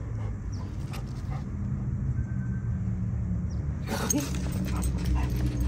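A dog gives a brief whine about four seconds in, over a steady low hum.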